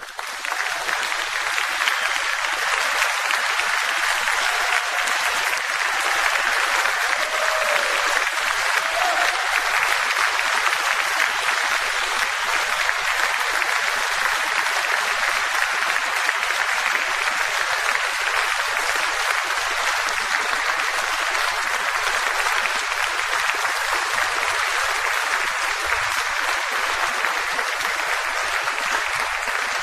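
Audience applauding steadily and at length in a large hall.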